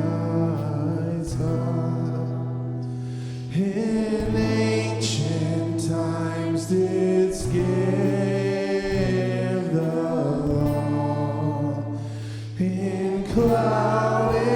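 Worship band music: slow, held chords over long steady bass notes, the harmony shifting every couple of seconds.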